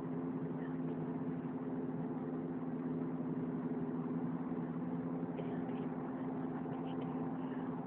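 A steady drone of several held low tones, unchanging in pitch and level, coming from the sky. It sounds like a jet hovering over the house, and its source is unknown.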